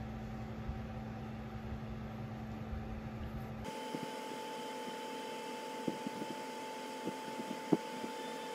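A few faint clicks and taps from an Apple Pencil being handled and fitted into a case, over a steady hum. The background tone changes abruptly about a third of the way in, and the clicks fall in the second half.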